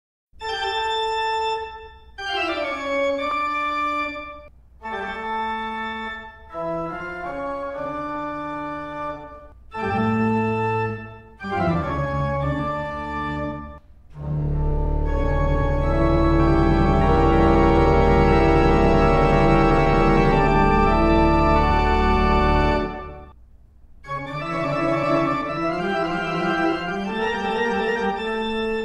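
Organ music: short phrases of held chords separated by brief pauses, then a long, louder passage of full chords in the middle, then more short phrases near the end.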